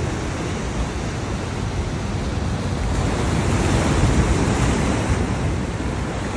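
Ocean surf breaking and washing against a rock revetment in a continuous rushing wash, swelling louder about halfway through as a wave breaks on the rocks.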